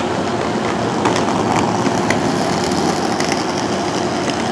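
Amtrak Amfleet passenger coach rolling slowly past on the track: a steady rumble from the wheels and running gear, with scattered clicks and ticks and a faint steady hum.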